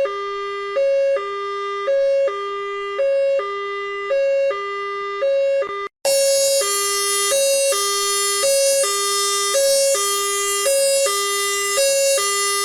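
Emergency-vehicle two-tone hi-lo siren, alternating between a short high note and a longer low note about once a second. It cuts out briefly about six seconds in, then resumes louder and brighter.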